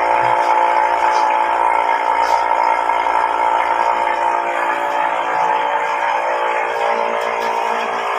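Steady, loud drone of running machinery, a hum made of several held tones, with some of its lower tones dropping away about halfway through.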